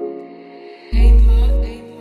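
Background hip-hop beat: soft held melodic notes, then a deep bass note hits about a second in and fades before the end.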